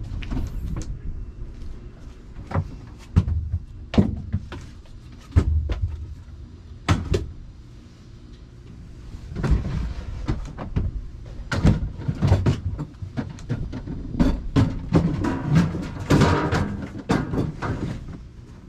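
Plantation shutters being handled and moved about by the truck bed: a string of irregular knocks and clunks, with longer scraping sounds about ten seconds in and again about sixteen seconds in.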